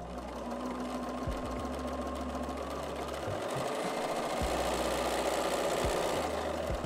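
Bernina 770 QE computerised sewing machine stitching a straight seam through cotton at a fast speed, described as extremely fast. The stitching grows louder over the first few seconds and winds down near the end.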